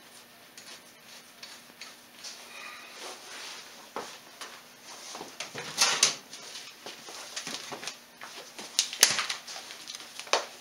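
Workshop handling noises: scattered light knocks, clicks and rustling, with two louder clattering bursts about six and nine seconds in and a shorter one near the end.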